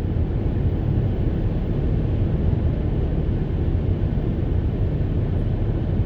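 Steady low road rumble inside a moving car: engine and tyre noise at highway speed.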